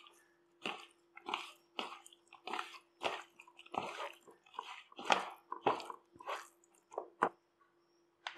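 Wet squelching of a hand squeezing and kneading raw chicken pieces in a sticky spice and corn-flour marinade in a plastic bowl, about two squishes a second, stopping about a second before the end.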